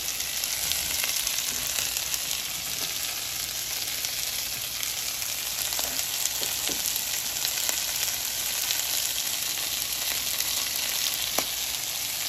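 Asparagus, carrots and onion sautéing in oil in a wok: a steady sizzling hiss with fine crackle, and a couple of faint light ticks.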